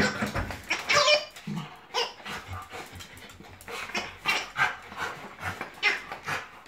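Two West Highland white terriers playing with giggle-ball toys: short bursts of the balls' giggling noises as they are pawed and rolled, mixed with the dogs' yips and barks.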